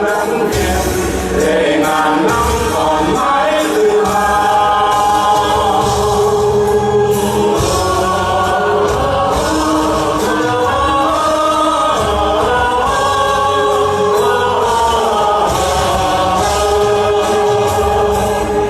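A choir sings a Vietnamese patriotic song in long held notes over an instrumental backing with a steady beat.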